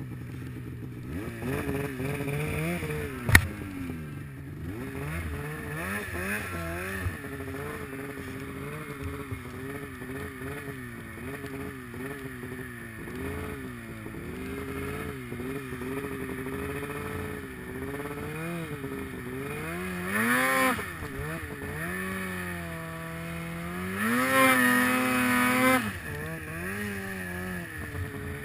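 Polaris Pro RMK snowmobile's two-stroke twin engine heard from on board, its revs rising and falling as the throttle is worked through deep powder, with harder revving about 20 seconds in and again for a couple of seconds near the end. A single sharp knock sounds about three seconds in.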